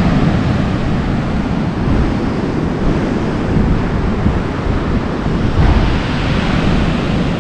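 Steady rush of ocean surf breaking on the beach, with wind buffeting the microphone.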